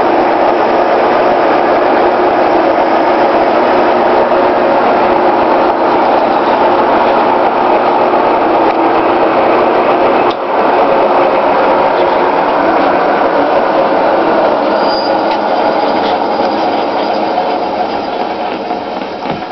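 LeBlond Regal engine lathe running, a steady mechanical clatter with an even hum of several tones. It breaks off for a moment about ten seconds in and gets gradually quieter near the end.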